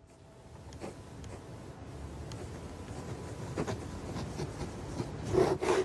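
Pen scratching across paper while drawing, faint at first, with a few louder strokes near the end.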